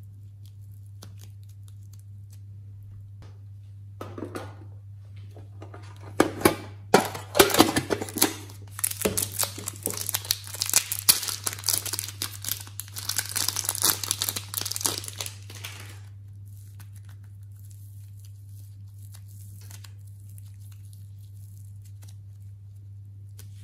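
Thin plastic piping bag crinkling and crackling as soft modelling clay is squeezed and worked inside it, in a dense run of rustles lasting about ten seconds from around six seconds in, with a short rustle a couple of seconds earlier.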